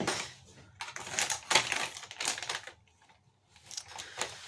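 Plastic food packaging being handled and opened: a run of crinkling, rustling and small clicks, in clusters, with a pause of about a second near the end.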